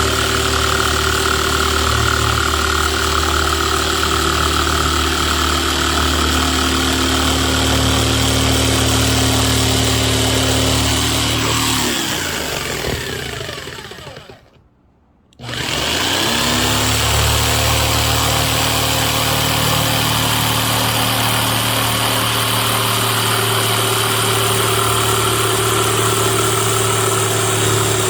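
Electric jigsaw motor running steadily. About halfway through it winds down in pitch to a stop, goes quiet for about a second and a half, then spins back up and runs on.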